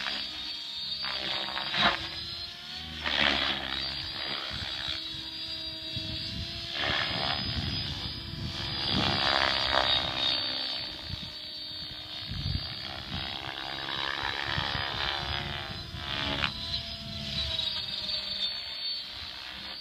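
Electric RC helicopter in flight, its motor and rotors giving a whining hum that rises and falls in pitch and loudness as it moves and changes load.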